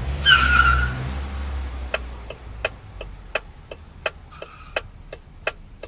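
Cartoon sound effect of a car pulling up, its engine rumbling for about a second and a half with a brief high squeal, then a car's turn-signal indicator ticking steadily at about three clicks a second.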